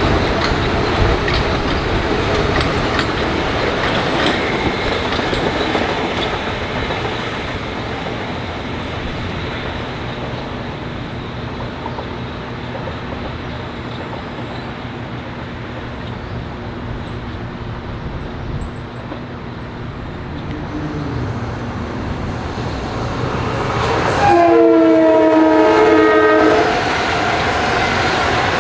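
Metro-North commuter train running on the tracks, its wheel and rail noise easing off and then building again. Near the end a train horn sounds once, a multi-note chord held for about two seconds.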